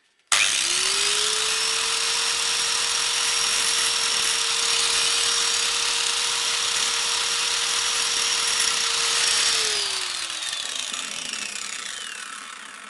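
Electric angle grinder switched on, its motor whine rising quickly to a steady pitch as the disc grinds at the steel weld bead holding a microwave oven transformer's laminations to its base, with a harsh grinding noise. Near ten seconds in it is switched off and the whine falls away as the disc spins down.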